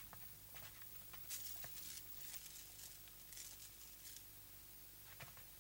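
Near silence: faint rustling and a few light taps over a low steady hum.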